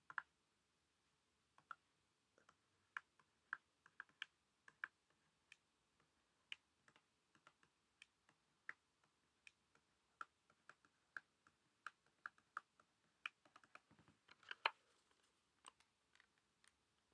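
Faint, irregular clicks and taps, one to three a second, from a stylus writing digits on a tablet screen, with a quick flurry about fourteen seconds in.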